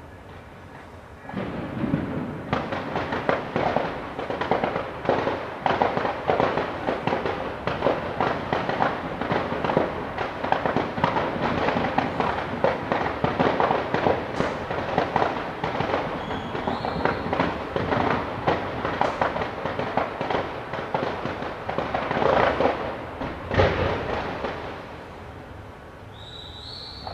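Fireworks display going off in a dense barrage of rapid bangs, pops and crackles, starting about a second in and running almost without pause, with one louder bang near the end before it thins out.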